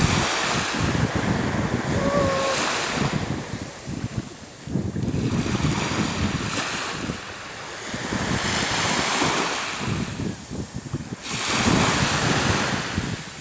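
Surf washing up the beach in swells that rise and fall every few seconds, with wind buffeting the microphone.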